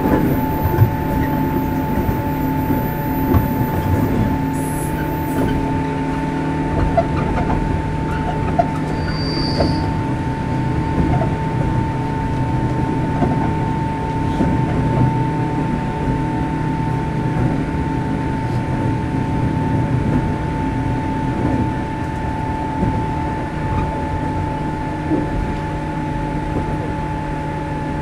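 Running sound inside a JR 103 series 1500-subseries electric multiple unit motor car: a steady hum that holds one pitch, over rumbling wheel and track noise with scattered small clicks.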